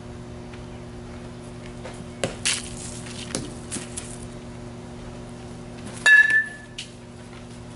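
A metal youth baseball bat striking a pitched ball about six seconds in: a sharp crack followed by a ringing ping that dies away in under a second.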